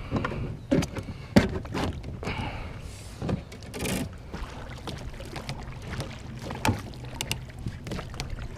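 Rowing a small boat: oars dipping and pulling through the water, with scattered knocks and clicks from the oars working in PVC oarlocks and a louder splash about four seconds in.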